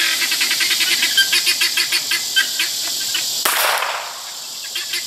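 A single gunshot about three and a half seconds in, followed by a short echoing tail, during target shooting. Before it, a rapid, regular chirping runs in the background.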